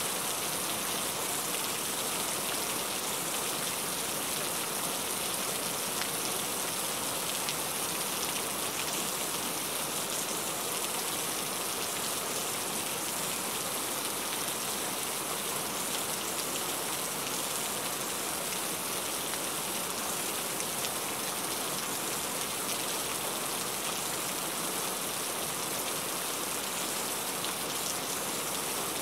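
Heavy rain falling steadily: a dense, even hiss of drops, strongest in the high range and without letup.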